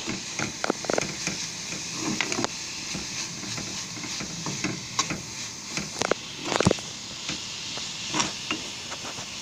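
Sliced onions coated in spice powders sizzling in oil in a kadai while being stirred, with repeated taps and scrapes of the spatula against the pan and one louder knock a little past halfway. This is the masala-onion filling for samosas being lightly sautéed.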